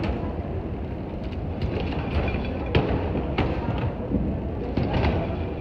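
Airport baggage carousel running with a steady low noise. Several sharp knocks come from suitcases bumping on its moving metal slats.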